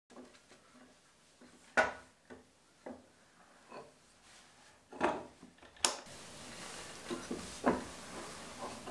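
Wooden knocks and clicks from working a small workbench's face vise, its screw and wooden chop being moved and handled. The loudest knock comes about two seconds in, a longer scraping clunk about five seconds in and a sharp click just after, then a few lighter taps.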